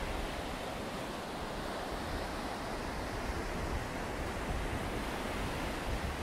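Steady rushing of surf breaking on a beach, with wind rumbling on the microphone.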